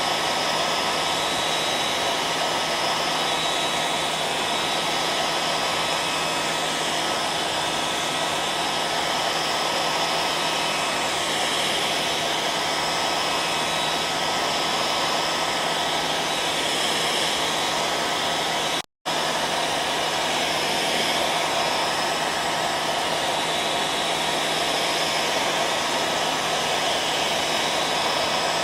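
Hair dryer running steadily: an even rushing blow with a faint steady whine in it. It cuts out completely for a split second about two-thirds of the way through.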